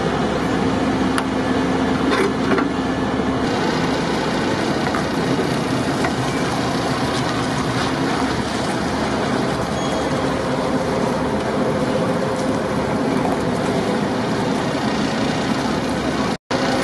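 Heavy military diesel vehicle engines idling steadily, with a few light clicks about two seconds in. The sound cuts out for an instant near the end.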